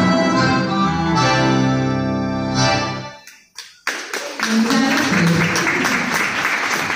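A live band's song ends on a held chord that fades out about three seconds in; after a brief pause the audience breaks into applause.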